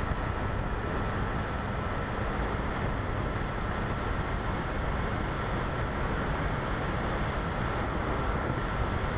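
Steady rush of airflow over an Easy Glider RC model plane in flight, heard through its small onboard camera's microphone, with a faint steady high whine underneath.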